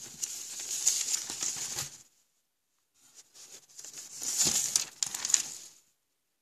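Paper brochure pages being turned and handled, rustling and crinkling in two bouts, the second starting about three seconds in.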